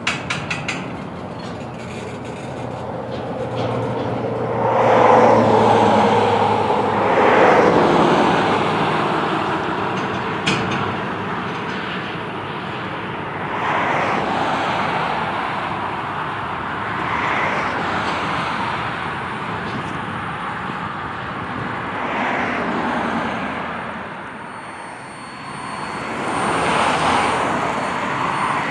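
Double-stack intermodal freight train's well cars rolling past: steel wheels on rail giving a steady rumble and clatter that swells and fades every few seconds as the cars go by.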